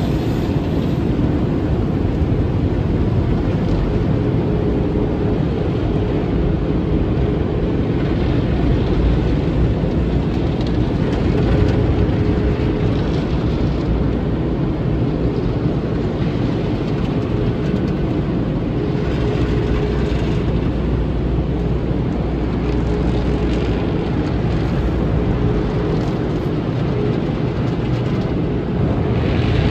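Automatic car wash heard from inside the car: a steady, loud rush of water spray and spinning brushes and cloth strips scrubbing over the windshield and body. A faint machinery hum comes and goes under it.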